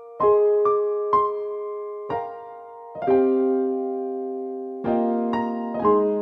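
Slow, gentle piano music: single notes and chords struck about every half second to second, each ringing on and fading.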